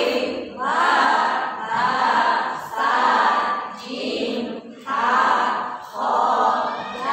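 A group of women recite Arabic letter names together in a sing-song chant, one drawn-out syllable about every second.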